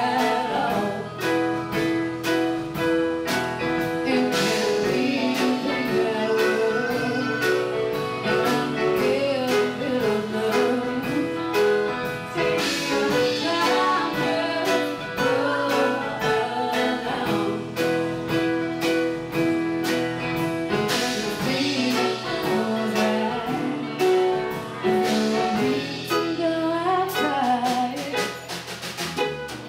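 Live band playing a song: a female lead vocal over keyboard, bass guitar and drum kit keeping a steady beat.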